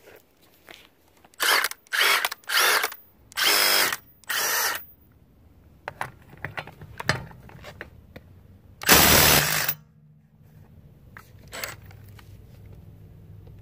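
Milwaukee M18 Fuel cordless impact driver hammering on a car's lug nut in short bursts: five quick ones in the first five seconds, then a longer, louder burst about nine seconds in and a brief one near the end.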